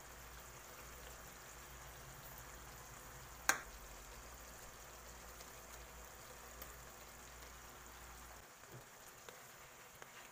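Pork simmering in a pineapple-juice and soy-sauce sauce in a wok: a steady, faint sizzle and bubbling. A single sharp click comes about three and a half seconds in.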